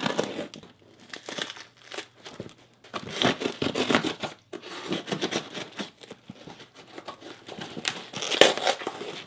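A duct-taped cardboard box being slit with a knife and torn open by hand: irregular crinkling and ripping of tape and cardboard, loudest near the end.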